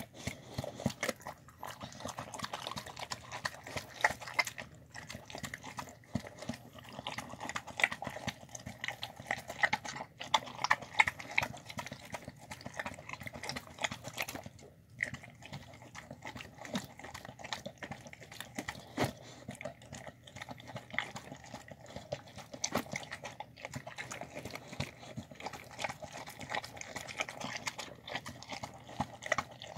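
A dog eating soft cooked rice and vegetables from a bowl: continuous chewing with many quick wet mouth clicks and snaps. It pauses briefly about halfway through.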